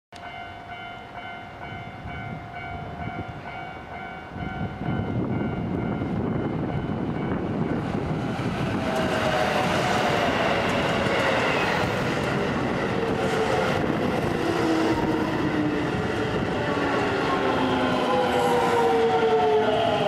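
A level-crossing warning bell rings at first. Then electric commuter trains run loudly across the crossing, their wheels rumbling and clattering, with a motor whine that falls steadily in pitch.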